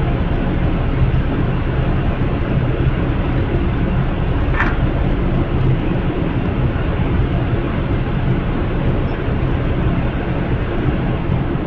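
Steady low rumble with a faint hum from the stopped Amtrak Southwest Chief's idling diesel locomotives. A brief high chirp sounds about four and a half seconds in.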